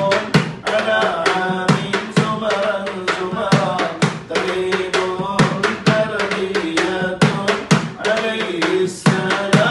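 Men's voices singing an Arabic devotional baith with long held melodic notes, accompanied by a hand drum struck in a steady rhythm.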